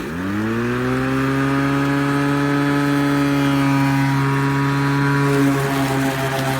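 Greenworks electric push lawn mower starting: the motor and blade spin up with a rising whine over about a second, then run at a steady hum.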